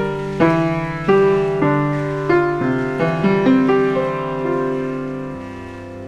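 Background piano music: slow single notes and chords struck about every half second, then a held chord that fades away near the end.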